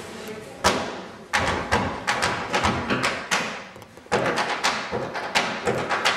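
Tap shoes striking the floor in quick rhythmic patterns: a first sharp tap, then runs of clicking taps, a short lull, and a steady string of taps near the end.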